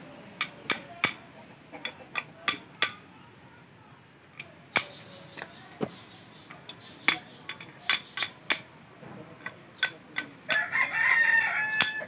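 Steel hammer striking a motorcycle steering stem and lower triple clamp, metal on metal, in irregular sharp blows. Near the end a rooster crows once, loudly.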